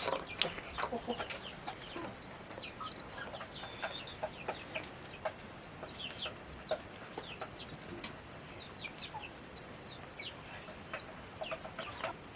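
Chickens clucking, with many short, high, falling calls scattered throughout and a few sharp clicks.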